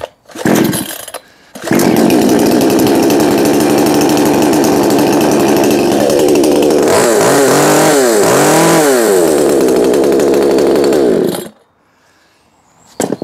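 Brand-new Bu-Ko 65cc two-stroke petrol chainsaw being pull-started: a short burst, then it catches about a second and a half in and runs steadily. It is revved up and down a few times around the middle, then cuts off suddenly about eleven seconds in.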